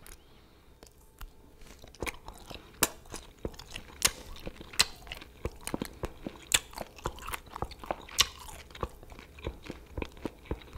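A person chewing fried dried seasoned squid, with many small crisp crunches and mouth clicks. The crunching is sparse at first and grows busy about two seconds in.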